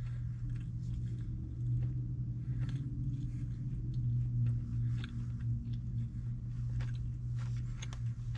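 A person chewing food, with small scattered clicks of a fork against a plastic takeout bowl, over a steady low hum inside a car cabin.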